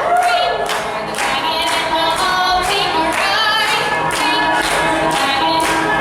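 Stage revue music: several voices singing together over a steady beat.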